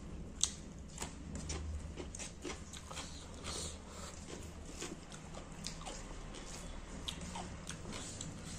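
Eating sounds: fingers mixing wet rice and pangas fish curry on a plate and mouth chewing, with many small sharp clicks and smacks, one louder click about half a second in, over a low steady hum.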